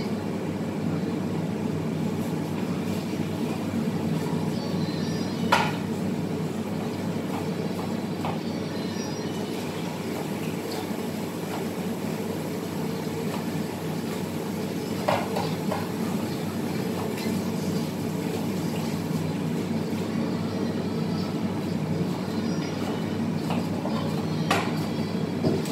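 Steady mechanical hum and rumble of a kitchen extractor hood over a stove, with three short clinks spread through it, the first the loudest.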